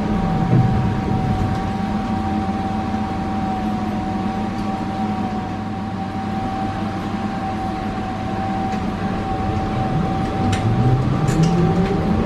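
Pesa 120Na Swing low-floor tram running, heard from inside the passenger saloon. Its drive gives a steady high whine over the rumble of the wheels. Lower motor tones fall in pitch in the first second and rise again over the last few seconds, with a few sharp clicks a little before the end.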